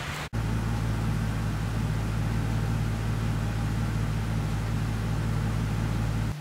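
A steady low mechanical hum. It starts suddenly a fraction of a second in and cuts off abruptly near the end.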